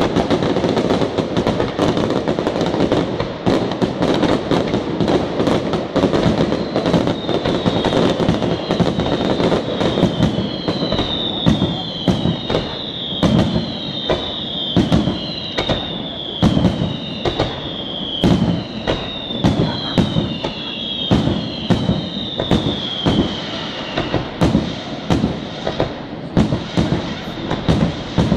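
Aerial fireworks display: shell bursts crackle in a dense, continuous barrage at first, then thin to separate loud bangs about two a second. Through the middle a run of high whistles repeats, each falling in pitch, over the bangs.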